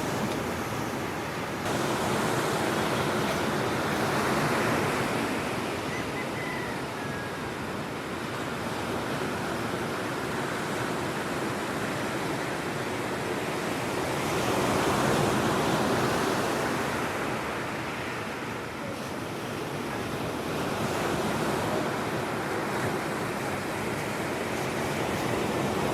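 Ocean surf breaking on a grey-sand beach: a steady wash of waves that grows louder and fades again several times as sets roll in, with some wind.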